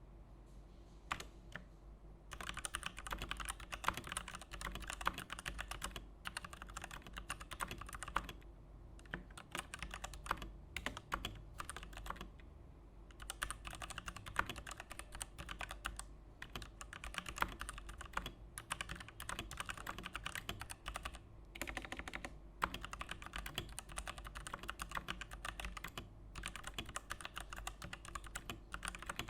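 Fast, continuous typing on a Digital Alliance Meca Warrior X mechanical keyboard with PBT doubleshot keycaps: dense runs of key clacks with a few short pauses.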